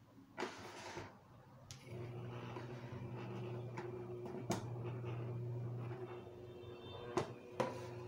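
Electric motor of an Arno fan, its blades off, switched on and running with a steady hum from about two seconds in, easing off near the end; its newly replaced shaft spins normally. A brief rustle near the start and a couple of sharp clicks from handling the fan.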